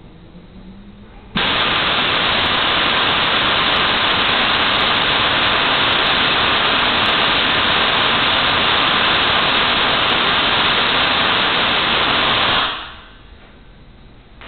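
Spark-gap Tesla coil firing: a loud, steady static-like hiss that switches on suddenly about a second and a half in and dies away near the end.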